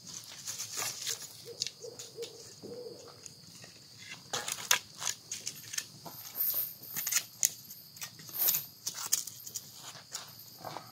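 Wood campfire crackling and popping in irregular sharp snaps as sticks of kindling are fed onto it, the snaps denser and louder from about four seconds in. A steady high insect trill runs underneath.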